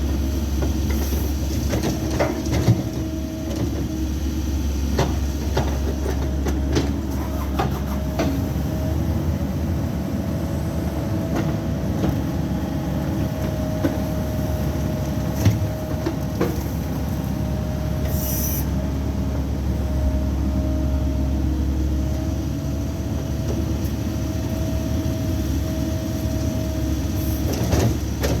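Mini excavator running steadily, its engine hum carrying a constant whine, with scattered clanks and knocks from the machine at work.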